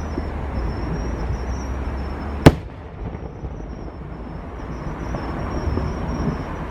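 Fireworks display: a continuous low rumble of distant firework bursts, with one sharp, loud bang about two and a half seconds in.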